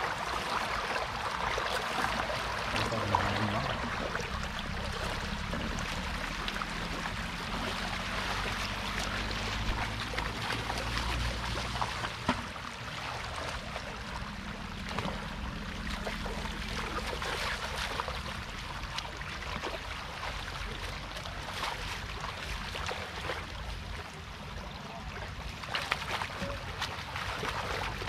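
Floodwater rushing across a road and over a fish-trap net, a steady wash of water noise with small splashes. A faint low hum runs under it for several seconds in the first half.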